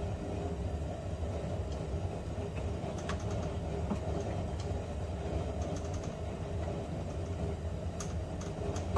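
Steady low background rumble, with a few faint light clicks and taps from the parts of a car's blower motor being handled, a few near the middle and a couple near the end.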